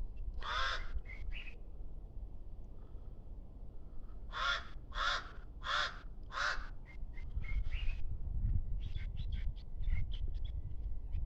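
A bird giving harsh, raspy calls: one call about half a second in, then a series of four about two-thirds of a second apart near the middle, followed by a run of shorter notes. A low rumble runs underneath.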